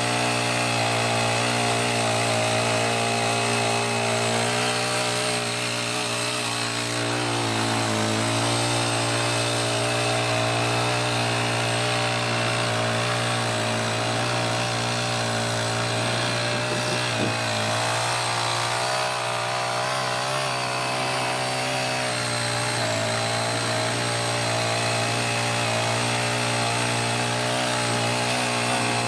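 Honda GX35 four-stroke engine of a small foldable garden tiller running steadily at high speed, its pitch sagging briefly twice.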